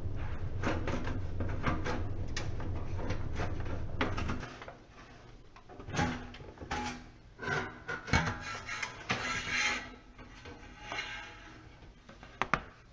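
Clicks, knocks and rattles of the toaster oven's metal parts and screws being handled and worked loose during disassembly, over a low steady rumble that stops about four seconds in.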